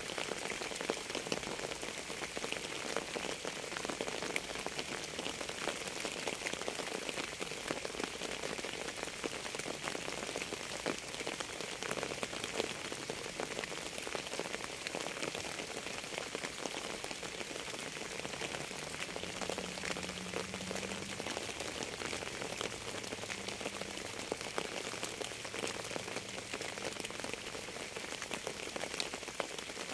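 Steady rain falling on a surface, a continuous hiss full of individual drop impacts.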